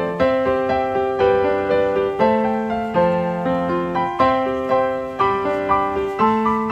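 Background piano music: a gentle melody of evenly paced notes, struck about twice a second, over held lower notes.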